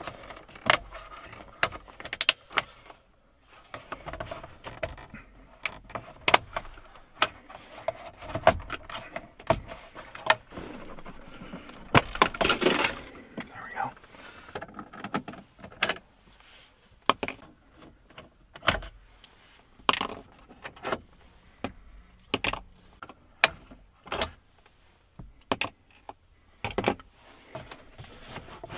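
Plastic dashboard trim being pried off with a plastic trim tool: scattered sharp clicks and snaps of the retaining clips letting go, with a longer stretch of rattling and scraping about twelve seconds in.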